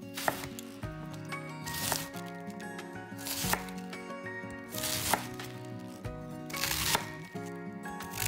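A chef's knife slicing through a head of white cabbage five times, about every second and a half: each cut is a short crunch of leaves ending in a sharp knock of the blade on a wooden cutting board. Background music plays under the cuts.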